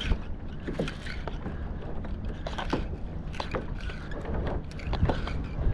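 Water lapping against a fishing kayak's hull, with scattered small knocks and clicks at irregular intervals.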